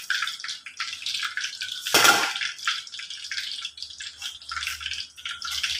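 Pot of chicken soup boiling on the stove, bubbling with many small pops, with one louder burst about two seconds in.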